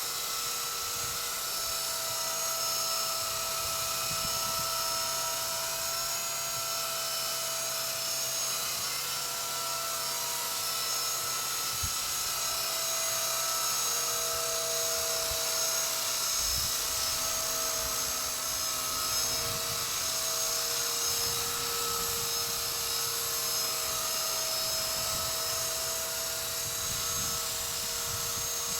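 Walkera V120D02S micro RC helicopter hovering: a steady electric motor and rotor whine whose pitch drifts slightly up and down, with low rumbles of wind on the microphone now and then.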